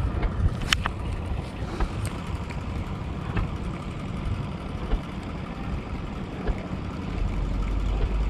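Wind buffeting the microphone over open water, a steady low rumble, with a few faint clicks in the first couple of seconds.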